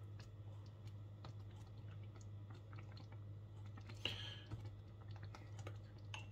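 Faint, scattered clicks and soft scrapes of metal tongs stirring thick rice pudding in a steel pot, with one short, louder scrape about four seconds in, over a steady low hum.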